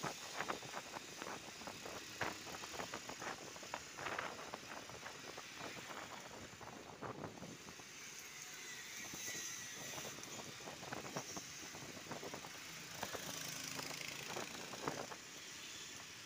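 Wind and road noise heard from a moving motorcycle in traffic, with frequent short knocks and rattles through it.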